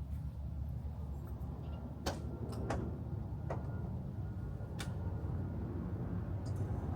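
A handful of sharp clicks and knocks, about five spread over several seconds, over a steady low hum.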